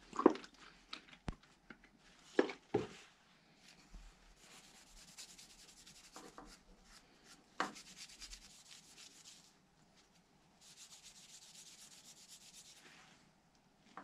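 Cloth rubbing shellac into a wooden pocket-knife handle: a fine, dry scratching in two long spells. A few knocks in the first three seconds and one more midway, from the bottle and knife being handled on the wooden workbench.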